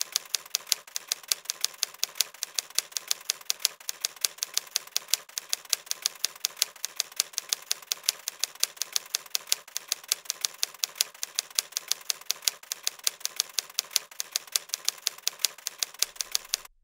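Typewriter typing sound effect: a steady run of quick key clicks, several a second, timed to the text as it types itself onto the screen, cutting off abruptly near the end.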